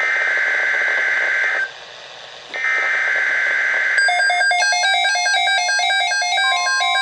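Emergency Alert System SAME header: bursts of buzzy digital data tone, each about a second and a half long, repeated after a one-second gap. These coded bursts open a new weather alert. About four seconds in they give way to a warbling electronic alert of rapidly stepping tones, and a steady tone joins near the end.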